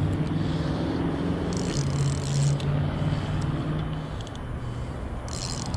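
A low, steady engine-like hum that fades away about four seconds in, with two short high buzzes, one early and one near the end.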